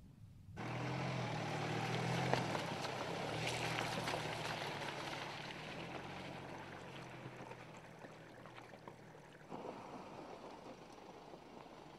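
Mercedes-Benz GLK SUV driving through a shallow, rocky stream bed: low engine hum with water splashing and stones under the tyres. It starts suddenly about half a second in, is loudest over the next few seconds, then fades, and turns quieter near the end.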